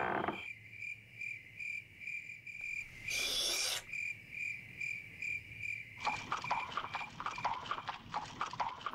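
Crickets chirping in a steady rhythm, about two to three chirps a second. About three seconds in a horse gives a short snort, and from about six seconds in there is a run of quick hoof clops.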